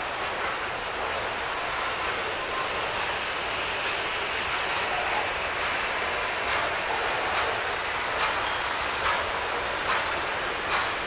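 Boxcars of a slow-moving Norfolk Southern manifest freight train rolling past: a steady rolling noise of steel wheels on rail. From about halfway through come light wheel clicks over the rail joints, about one a second.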